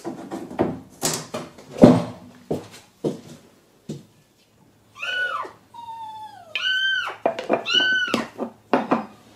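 Knocks and clatter for the first few seconds, the loudest about two seconds in; then, from about five seconds in, a small kitten mewing over and over, short high cries in quick succession.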